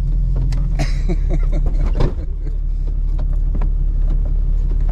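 Off-road vehicle's engine droning steadily, heard from inside the cab while it drives a rough sandy trail. Short rattles and knocks come over the bumps, with one sharper thump about two seconds in.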